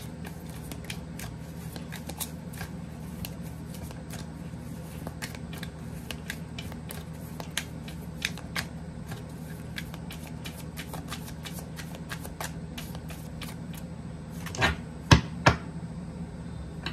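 A deck of tarot cards being shuffled by hand, overhand, with a steady patter of small card clicks. Near the end there are three louder knocks.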